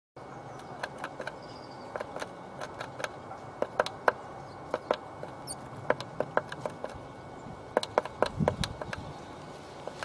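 Blue tit pecking at the rim of a wooden nest box's entrance hole: irregular sharp taps of beak on wood, with a duller low thud a little after eight seconds.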